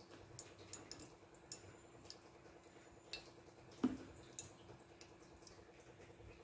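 Ghee melting in a hot stainless-steel pressure cooker, with faint scattered ticks and crackles over a steady low hum, and a single sharp knock about four seconds in.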